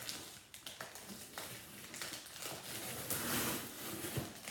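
Paper and packing rustling and crinkling as a cardboard shipping box is opened and unpacked by hand, with scattered small clicks and taps and a louder stretch of rustling about three seconds in.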